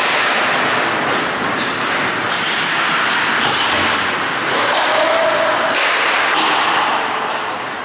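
Ice hockey play: skate blades scraping and carving the ice, sticks clacking, and thuds of players and puck against the boards, a continuous rink clatter.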